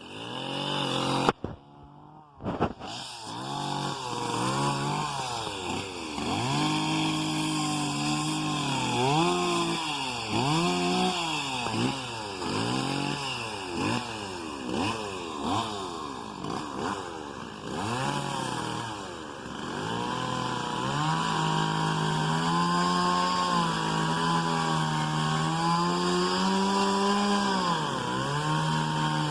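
Backhoe's diesel engine revving up and down over and over as the hydraulics work, then held at a steadier, higher speed for the last few seconds.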